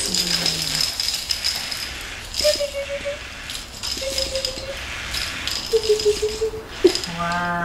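Soft plush baby toy with a rattle inside being shaken in repeated strokes, with a high ringing jingle.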